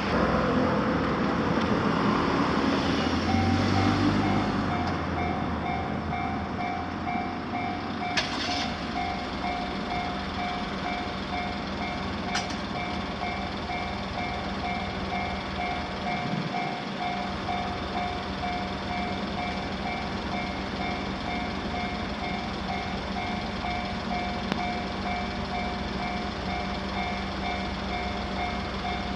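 Japanese level-crossing warning bell ringing on and on: a steady run of quickly repeated electronic dings. At the start a passing train's rumble fades out over the first few seconds. There are two short clicks in the middle.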